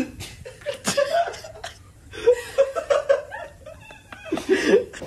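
A person laughing: short chuckling bursts in two runs, one around the middle and one near the end, with a few sharp clicks before them.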